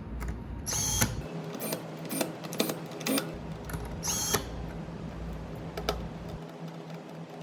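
Cordless inline electric screwdriver running in two short high-pitched whirs, about a second in and again about four seconds in, with several sharp clicks in between.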